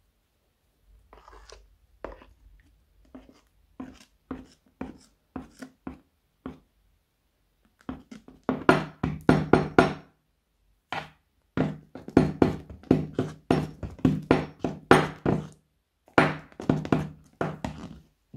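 Metal spoon stirring hair mousse and clear glue in a plastic cup, knocking and scraping against the cup wall. The strokes come sparsely at first, then from about eight seconds in as a rapid run of several a second.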